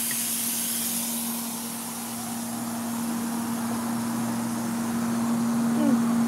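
A steady low hum under a background hiss, the hiss fading during the first second or two; a few short voice-like sounds come just before the end.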